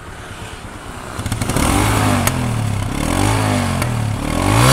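TVS Apache RTR 160 2V's single-cylinder engine running through its stock exhaust. It idles quietly at first; from about a second in the throttle is blipped, and the revs climb and drop back a few times, loudest near the end.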